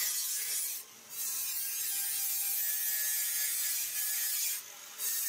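Angle grinder grinding a steel sickle blade: a steady, hissing grind that breaks off briefly about a second in and again near the end.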